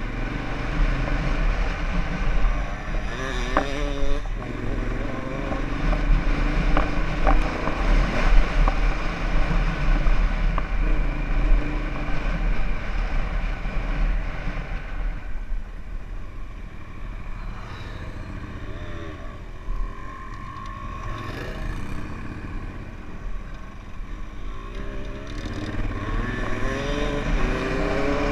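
Honda Africa Twin's parallel-twin engine running under way on a dirt trail, its note rising and falling with the throttle. It eases off and goes quieter for several seconds past the middle, then pulls up again with a rising note near the end; a few sharp knocks come from the rough ground early on.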